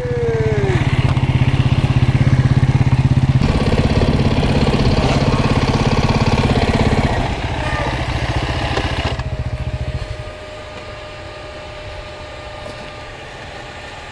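Dirt bike engines running at low revs with an even firing pulse. Just at the start a passing bike's note falls in pitch. The sound changes abruptly a few times, and from about ten seconds in a bike idles more quietly.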